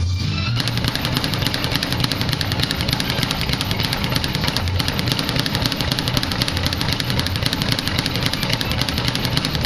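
Speed bag being punched nonstop, a rapid, even rattle of the leather bag hitting the rebound board.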